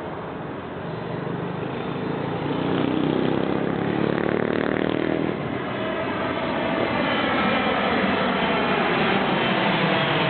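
Airplane passing overhead, its engine noise growing louder over the first few seconds and staying loud.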